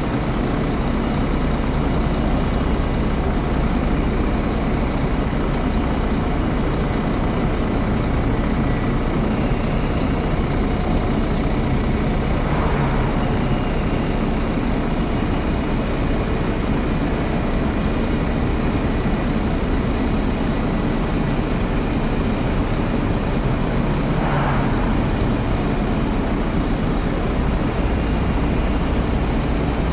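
Steady road traffic noise: a continuous low rumble with hiss and no distinct events.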